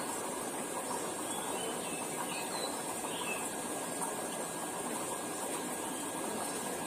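Steady rushing hiss of an aquarium's water pump and filter flow, with a few faint, short, high chirps about two to three seconds in.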